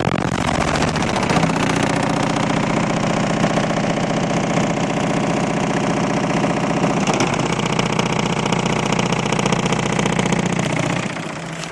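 Four Fi BTL 18-inch car subwoofers playing a very low bass note at high volume. The recording is overloaded into a heavy rattling buzz that holds steady, shifts briefly about seven seconds in, and fades out near the end.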